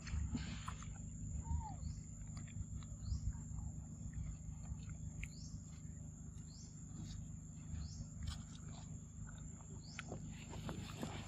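Macaque eating a soft fruit, with scattered wet chewing clicks. Behind it are short falling bird chirps every second or so, a steady high-pitched hum and low wind rumble.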